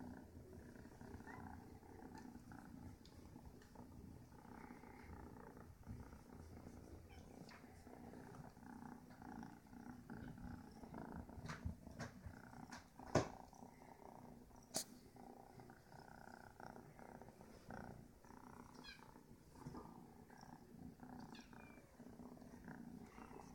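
Kitten purring faintly and steadily while being stroked by hand. A few sharp clicks near the middle, the loudest about halfway through.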